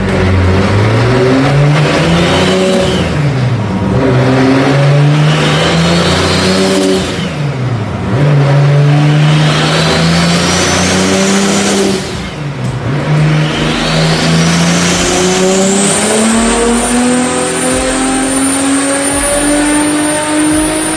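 Turbocharged Toyota 2JZ-GTE straight-six in a MKIV Supra accelerating hard through the gears of its six-speed manual. The revs climb and drop three times at the upshifts, and a rising turbo whistle follows each pull, the last one long and climbing to the end.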